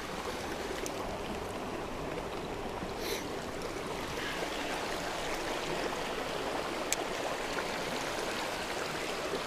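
Small creek running with a steady rush of water. A few brief sharp clicks cut in: one about three seconds in, another about seven seconds in, and the loudest right at the end.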